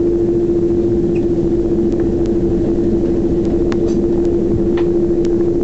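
Inside the cabin of a Boeing 767-300 moving on the ground: the jet engines' steady hum, a single unchanging tone over a low rumble, with a few faint ticks.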